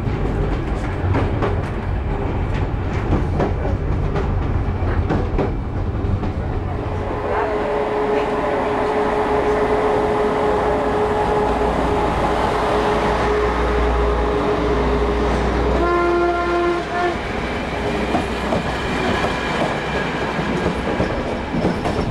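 Railway train running on the line, its wheels clattering rhythmically over the rail joints, then a steady tone as an oncoming locomotive and its coaches pass close alongside. A short train horn blast of about a second sounds about sixteen seconds in.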